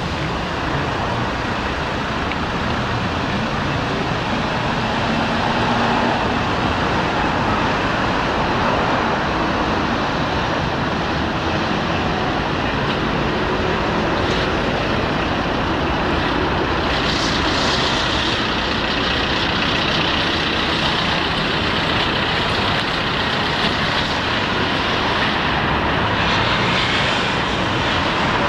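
Steady road traffic noise from a busy city street, with cars and trucks passing and a few louder swells as vehicles go by near the end.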